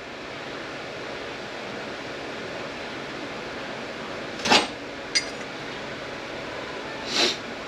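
Steady hum of shop air or fan noise, with two short clinks of SM465 transmission parts being handled, about four and a half and seven seconds in, and a faint tick between them.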